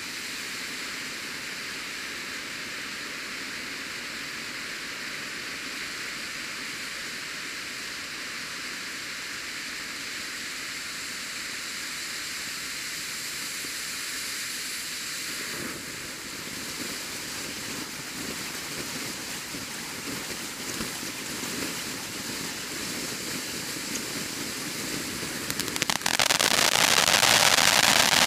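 World Class Taco Tuesday fireworks cake firing its fan of silver dragon fountain tubes, a steady hiss of spraying sparks that turns rougher about halfway through. Near the end it jumps suddenly into a much louder, dense crackling: the crackle finale.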